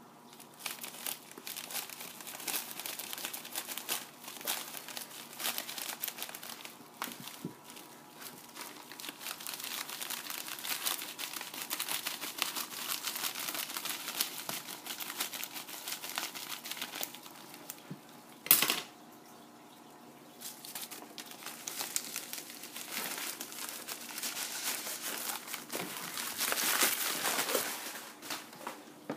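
Plastic shipping mailer and brown paper wrapping being handled and opened by hand: continuous crinkling and rustling, with one sharp, louder noise about two-thirds of the way through.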